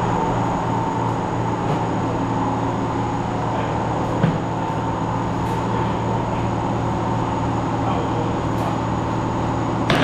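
Steady machine hum, with a single short knock about four seconds in.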